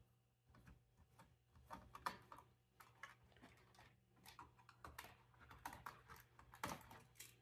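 Faint, irregular small clicks and ticks of a screwdriver turning a screw out of a laptop's plastic chassis, with a sharper click near the end.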